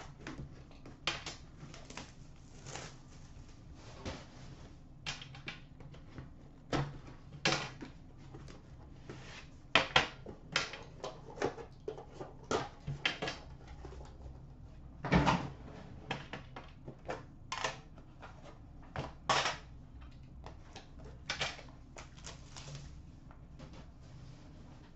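Irregular clicks and knocks of trading card packaging being handled: a hockey card box opened and its black metal tin set down and its lid lifted off. The sharpest knocks come about ten and fifteen seconds in.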